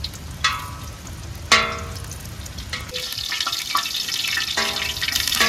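Coconut oil heating in an aluminium pot, a sizzle that builds and grows louder from about halfway through. A few short notes of background music sound over it.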